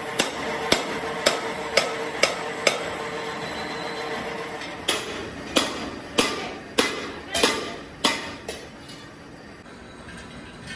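Hand hammer striking a steel wheel rim, six quick blows about two a second, with a steady metallic ring. Then steel rims clang as they are dropped onto a pile, about seven clangs with longer ringing tails, before it goes quieter near the end.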